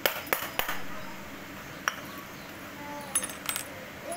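Metal clicks and clinks from a steel padlock and its brass keys being handled: a few sharp clicks in the first second, then keys clinking as they are set down on a stone floor near the end.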